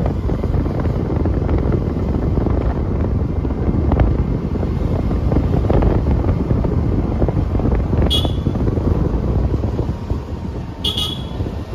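Steady road and engine noise from a moving vehicle, with wind buffeting the microphone. Two short high-pitched beeps come about eight seconds in and again near the end.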